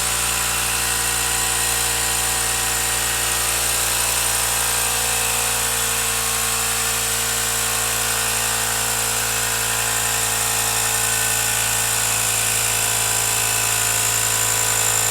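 Ryobi cordless battery inflator running steadily with an even motor-and-pump hum while it pumps up a bicycle inner tube.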